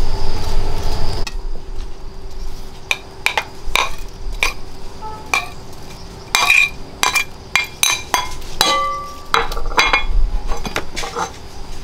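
A series of irregular clinks and knocks of hard objects, a few of them ringing briefly, with a low rumble in the first second or so.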